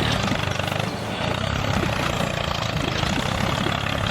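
A vehicle engine running steadily at a low, even idle, as of the mini tractor or bulldozer setting off.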